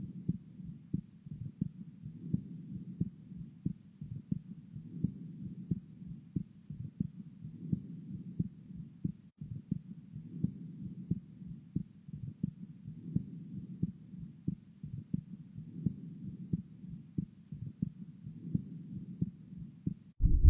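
Recorded heart sounds: a quick, regular run of short low beats, about three a second, over a steady low rushing sound between them.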